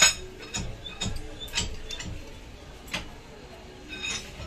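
Metal hand tools and steel mold parts clicking and clinking against each other while rubber compound is loaded into a small steel mold: an irregular series of about seven sharp clicks, the loudest right at the start.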